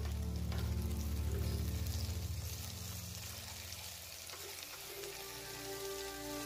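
Diced potato, peanuts and moraiya (barnyard millet) sizzling in a hot pot while a silicone spatula stirs them, with scattered light scrapes and clicks against the pot.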